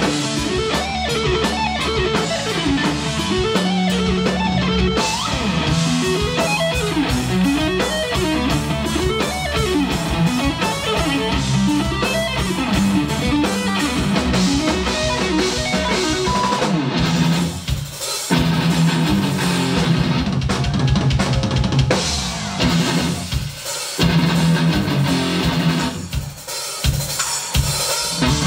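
Live instrumental rock-metal played loud: a Telecaster-style electric guitar playing fast lead lines over a drum kit with bass drum. The band stops short a few times in the second half.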